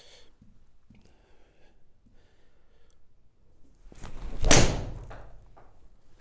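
Srixon ZX hollow-headed, graphite-shafted driving iron striking a golf ball off a hitting mat: one sharp click of impact about four and a half seconds in, followed by a fainter knock about a second later.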